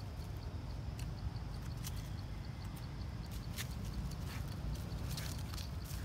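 Dry leaves crackling and rustling underfoot in scattered steps over a steady low rumble.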